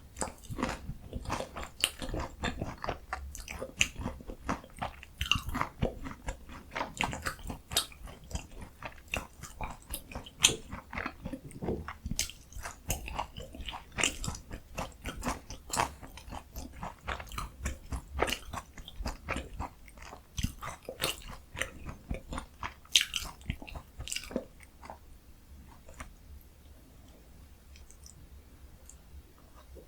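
Close-miked biting and chewing of crunchy breaded, deep-fried Korean pork cutlet (donkkaseu): crisp crunches and mouth sounds packed closely together, dying away to quiet for the last few seconds.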